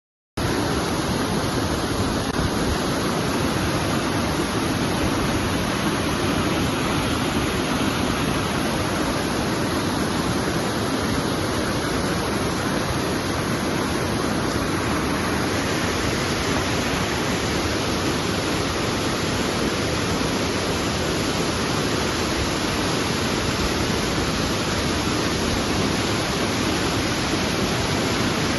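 Waterfall: a steady rush of falling water that cuts in suddenly just after the start.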